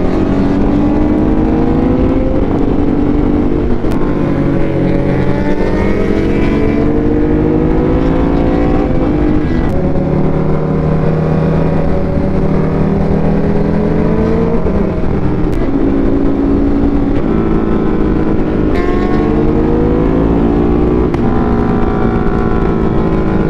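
Motorcycle engine heard from the rider's position, its pitch climbing and dropping back again and again as through gear changes and corners, over a steady low rush.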